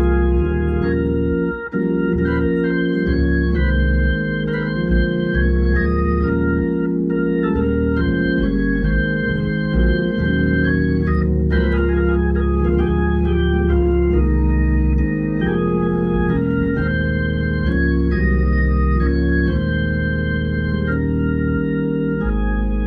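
Hammond organ playing a slow hymn in full held chords over a steady bass, the chords changing every second or two.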